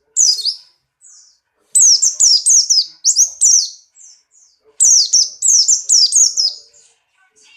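Buxtoni white-eye (pleci) singing in full song, as a bird in breeding condition does: runs of sharp, quickly falling high notes at about three a second. The song comes in three runs with short pauses between them.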